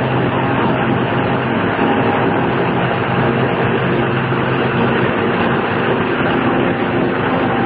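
Steady engine hum and tyre and road noise inside the cabin of a moving car.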